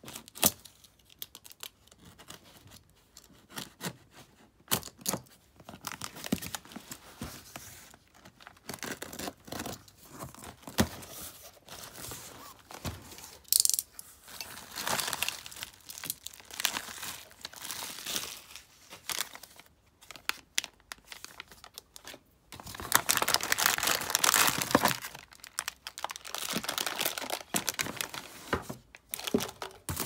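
Cardboard parcel being unpacked by hand: packing tape torn off, flaps opened, and plastic bubble-wrap bags crinkling and rustling, with scattered sharp clicks. The rustling is densest and loudest about three quarters of the way through.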